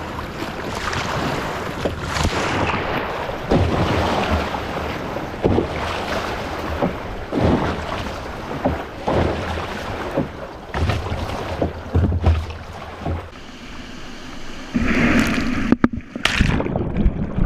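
Choppy water splashing and slapping against a kayak's hull in irregular bursts, with wind rumbling on the microphone. Near the end a wave breaks over the kayak and swamps it, muffling the sound, followed by a few sharp knocks.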